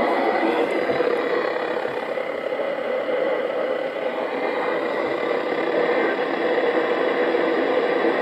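Steady hiss of radio static from a weather radio receiver with no clear programme audio, with faint steady tones under the noise.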